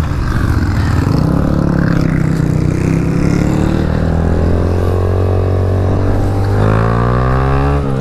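Small motorcycle engine pulling under way, its pitch creeping up slowly, then climbing steeply near the end as it revs out before dropping sharply.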